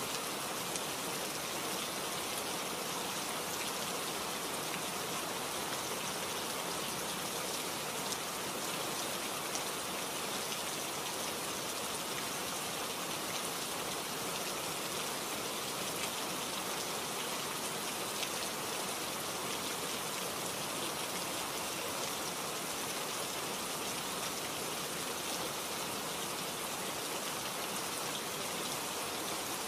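Steady hiss like falling rain, even and unbroken, with faint scattered drop-like ticks.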